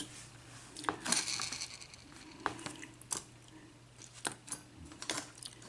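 Scattered light clicks and taps of small metal lock pins being handled and moved about on a work surface, each one brief and a second or so apart.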